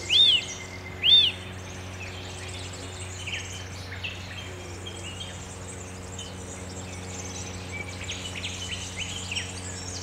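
Eurasian nuthatch calling: two loud whistled notes in the first second or so, each rising then falling. They are followed by fainter scattered bird chirps over a steady low hum.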